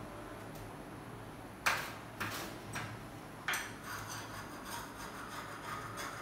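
A few sharp metallic clicks and knocks from a hand tool on an aluminium window frame, followed from about halfway in by rhythmic scraping of the tool against the frame, several strokes a second.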